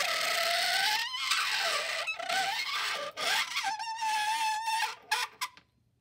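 Steel screwdriver shaft held against a block of dry ice, squealing in a wavering, high-pitched tone with brief breaks. It settles to a steadier pitch near the end and stops about five seconds in. This is the 'screaming spoon' effect: the metal vibrates from the steep temperature drop where it touches the dry ice.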